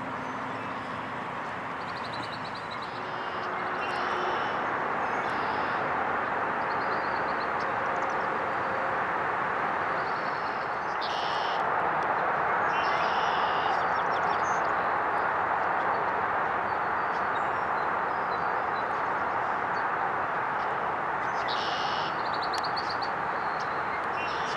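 Small birds chirping in short, repeated bursts over a steady rushing background noise that swells a few seconds in and again around the middle.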